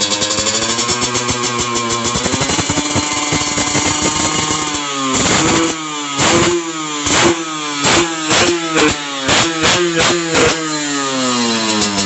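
Go-kart engine running, then revved in a rapid series of short throttle blips, then easing back down toward idle near the end, as it is being tuned after sitting idle a long time.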